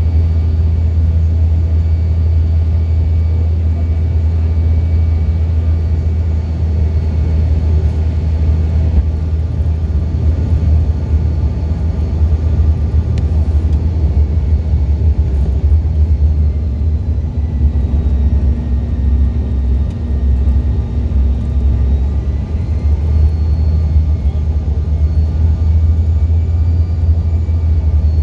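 Jet airliner cabin noise in flight: a loud, steady low rumble, with faint high whines that drift slightly in pitch.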